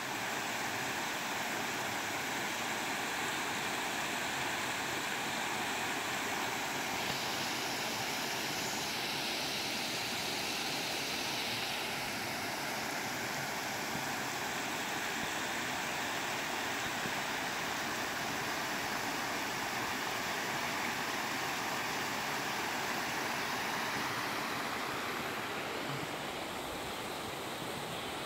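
River water rushing steadily over shallow rock ledges into a pool, an even, unbroken hiss. It grows a little brighter for a few seconds near the middle and slightly duller near the end.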